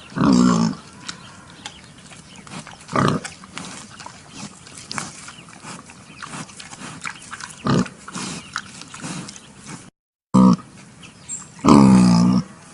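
Pigs calling: a loud pitched call at the start, shorter ones about three and eight seconds in, then the sound cuts out briefly near ten seconds and a longer, loud call follows near the end.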